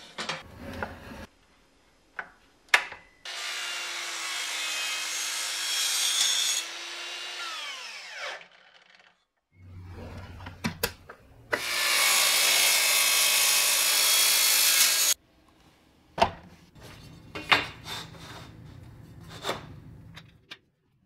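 Sliding miter saw (Metabo) cutting aluminum C-channel: two cuts of about three seconds each. After the first, the blade's whine falls away as the motor winds down. Sharp knocks and clanks between the cuts.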